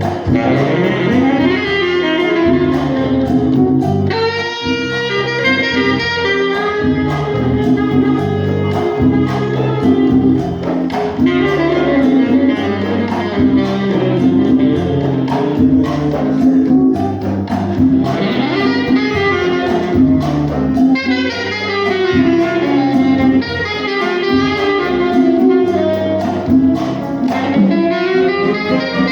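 Tenor saxophone playing a melodic solo over a Latin band's steady accompaniment in a guajira rhythm.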